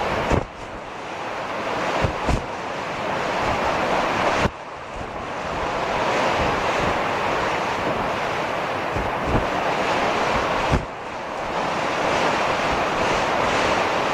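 Storm wind and heavy surf: a loud, steady rush that drops off sharply three times and builds back up each time, with several short low thumps of wind striking the microphone.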